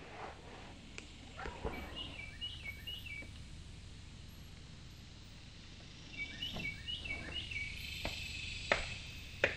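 A bird calling in two runs of four or five quick, repeated chirps, the first about two seconds in and the second about six seconds in, over faint outdoor background. A few sharp knocks are also heard, the loudest near the end.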